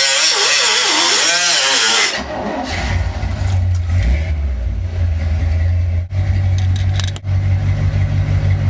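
A loud, noisy sound with a wavering pitch for about the first two seconds. It then gives way abruptly to the 1972 Chevrolet truck's engine running with a steady low rumble.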